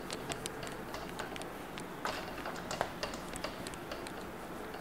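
Marker pen writing on a whiteboard: irregular light taps as the tip meets the board, with short scratchy strokes, the longest about two seconds in.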